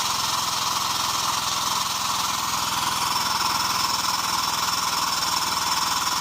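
Steady engine-like running with a fast, even pulse from the power unit driving a hydraulic push/pull bushing tool while it presses a new bushing into its bore.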